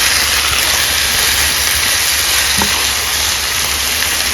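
Yogurt-marinated chicken pieces and onions sizzling in hot oil in a pan, a steady hiss, with one light knock about two and a half seconds in.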